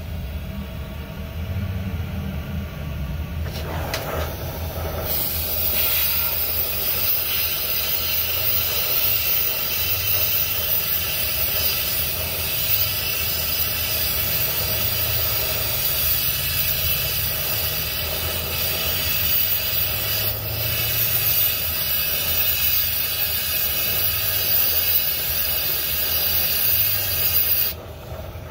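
Gas torch running on the two-stroke expansion-chamber exhaust at first; about five seconds in, a loud steady hiss starts from a long hose-fed trigger wand aimed into the exhaust's outlet, and cuts off suddenly just before the end.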